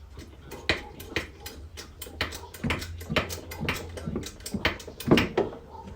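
Irregular sharp clicks and knocks, several a second, from hands-on body work: a Porta Power hydraulic ram being worked against a car's crumpled inner body structure to push it back out.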